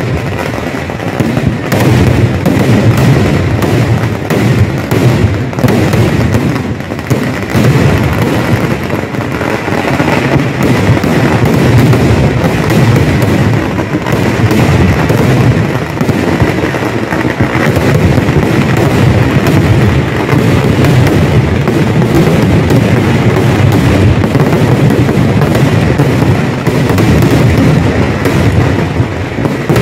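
Very loud massed fireworks barrage: aerial shells and firecrackers going off in a dense, unbroken run of overlapping bangs and crackle, with no pause.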